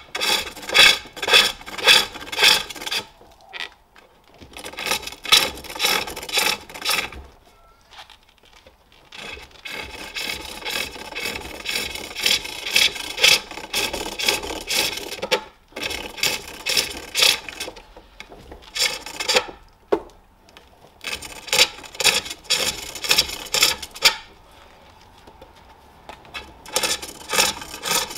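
Hand-forged turning tool cutting a jacaranda bowl on a spring pole lathe: a rasping shave with each turn of the work toward the tool, about two cuts a second, in spells broken by short pauses.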